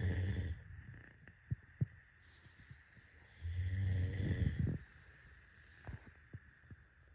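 Snoring in sleep: a low, buzzing snore fading out in the first half second, an airy breath around two and a half seconds in, then another loud snore from about three and a half to nearly five seconds. A couple of small clicks fall between them.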